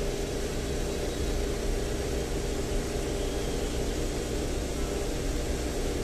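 Steady machine hum with a constant hiss and low rumble running evenly throughout, with no clear bird calls standing out.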